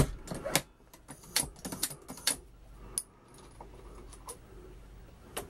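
Metallic clicks and clinks of a Hornady Lock-N-Load AP progressive reloading press being cycled to throw a powder charge, and a brass case being handled at the shell plate. A quick run of clicks at the start, then single clicks spaced out, with a sharper one near the end.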